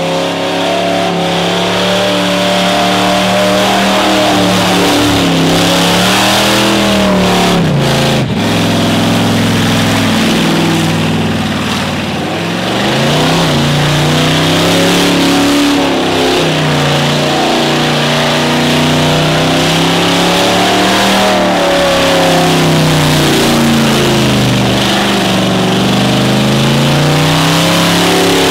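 Car engine held at high revs during a burnout, its pitch rising and falling repeatedly as the throttle is worked, over a steady hiss of noise. There is a brief dip with a few sharp cracks about eight seconds in.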